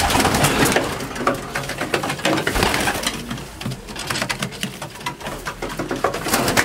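Young racing pigeons cooing in a small loft, with many short clicks and scuffs through it.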